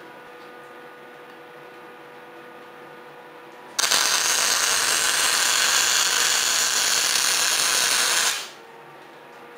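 Electric arc welding: a loud, even hiss that starts suddenly about four seconds in and runs for about four and a half seconds before stopping, over a low steady machine hum.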